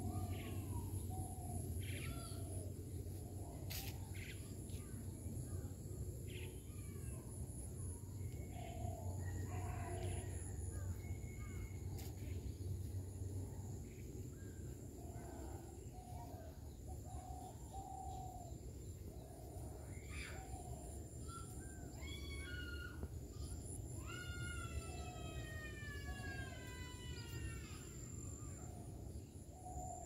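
Birds calling in a rural outdoor ambience: short calls every second or two over a steady high-pitched buzz and a low rumble. A little past two-thirds through, a longer call that slides down in pitch repeats several times over a few seconds.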